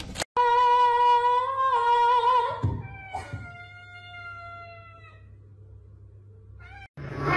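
Tabby cat meowing: a long, drawn-out call of about two seconds, then a second long meow that sinks slightly in pitch, and a short chirp near the end.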